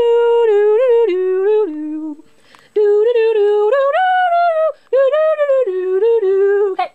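A person humming a melody note by note in short phrases, pausing twice and stopping abruptly near the end.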